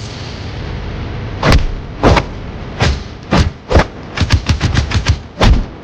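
Fight-scene punch and hit sound effects: five single heavy strikes about half a second apart, then a rapid flurry of about eight blows and one last heavy hit near the end.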